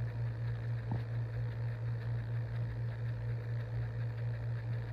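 Steady low machine hum with a slight regular pulse, and one faint click about a second in.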